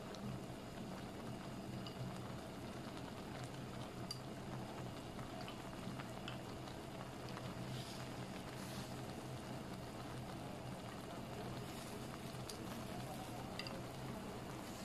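Pot of kimchi broth and vegetables simmering, a steady bubbling hiss over a low hum, with a few faint clicks.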